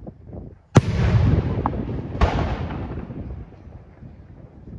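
Two fireworks bursting overhead about a second and a half apart, each a sharp bang followed by a long rolling echo that fades away.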